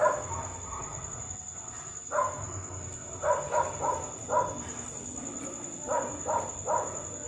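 Short pitched animal calls, repeated in quick groups of two or three from about two seconds in, over a steady high whine.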